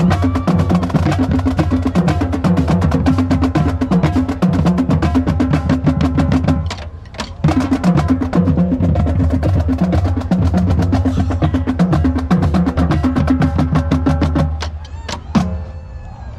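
Marching drumline playing: rapid snare drum strokes over lower pitched drums. The playing breaks off briefly about seven seconds in, resumes, and stops near the end, with a couple of last hits.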